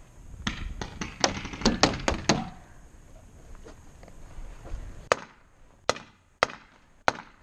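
Paintball game sounds: a quick cluster of knocks and thuds in the first couple of seconds, then four single sharp pops of paintball markers firing, each under a second apart, in the second half.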